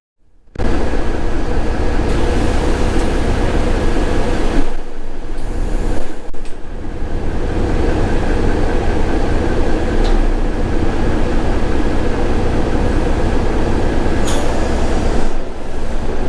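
Inside a single-deck bus: steady engine and running noise filling the cabin, dipping briefly twice about five and six seconds in.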